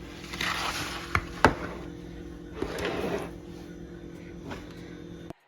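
Seasoned raw chicken breasts being handled and laid into a pan: soft wet rustling and a few light clicks and knocks of the pan, cutting off abruptly near the end.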